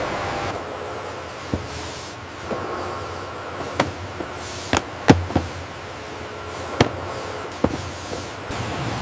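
Steady machine noise with a series of sharp, irregular clicks and knocks, some ringing briefly, and a faint high whistle that comes and goes.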